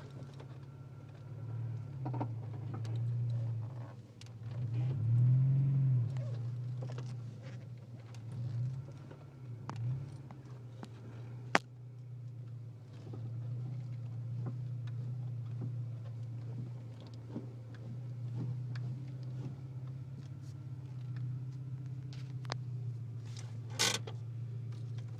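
Honda Integra's four-cylinder engine running with a steady low hum that swells briefly about five seconds in. There are scattered light clicks, a sharp knock about twelve seconds in and a louder one near the end.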